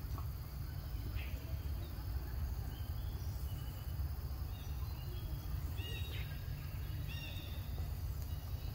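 Outdoor ambience: a steady low rumble with a series of faint, short, high-pitched animal chirps in the middle of the stretch.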